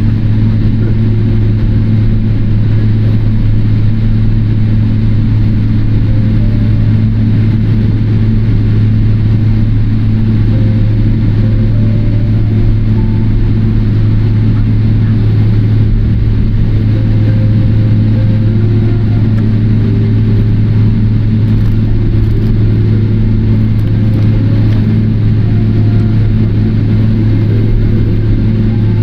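Steady low cabin hum inside a Boeing 777-300ER taxiing on the ground, from the GE90 engines at idle and the cabin air system, with no change in level.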